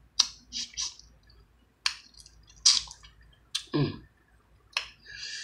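Close-up wet chewing and lip smacking of someone eating sauce-covered crab meat: a string of short, irregular squelching smacks.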